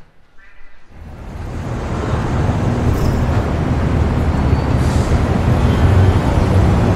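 Loud rumble of a large road vehicle close by, swelling up about a second in and then holding steady.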